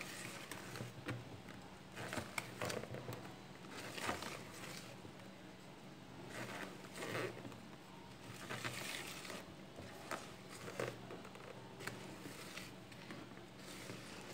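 Silicone balloon whisk being worked by hand through thick sponge-cake batter in a bowl: irregular wet swishing and scraping strokes, mixing the flour in until no lumps remain.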